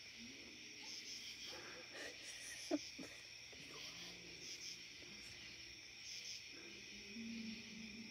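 Steady high-pitched insect chorus, with faint low calls from an unidentified animal coming and going underneath and one sharp click about three seconds in.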